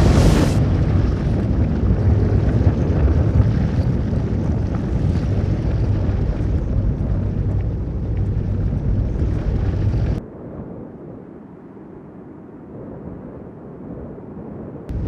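Tornado sound effect: loud, heavy wind noise with a deep low rumble, which cuts off abruptly about ten seconds in to a quieter, muffled wind with a short loud blip near the end.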